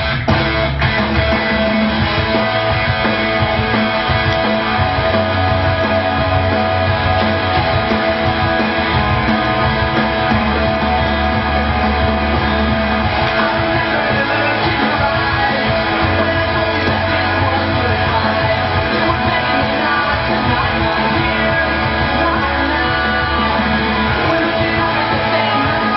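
Loud rock song with singing and guitar.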